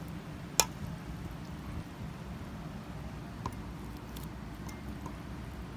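Chopped fresh vegetable salad being mixed and tossed in a bowl, with soft wet squishing. There is one sharp click about half a second in and a couple of lighter clicks later, over a steady low hum.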